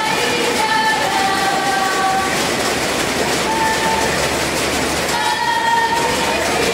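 Spectators cheering and shouting loudly, with several long held cries over the crowd's din, one sliding slightly down in pitch.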